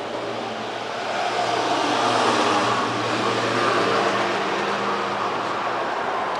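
Street traffic noise: a motor vehicle's engine running, steady with a low hum, getting louder about a second in.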